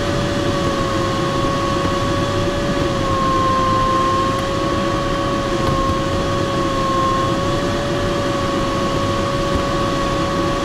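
Steady airflow noise in the cockpit of a Glaser-Dirks DG-202 sailplane in engineless gliding flight, with a steady tone over it that wavers slightly in pitch.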